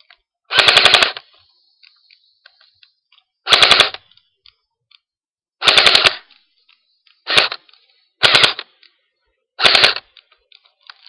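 Crosman R72 electric airsoft rifle firing on full auto in six short bursts, each a quick rattle of several shots, one to three seconds apart. It is fired in bursts because the high-capacity magazine's wheel won't feed by itself otherwise.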